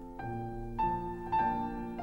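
Slow piano music: three notes struck about half a second apart, each left ringing over the ones before.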